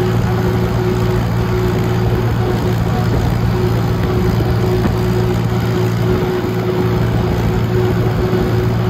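Vintage tractor engine running steadily under way, heard up close from on board the tractor, with a constant low drone and a steady higher whine.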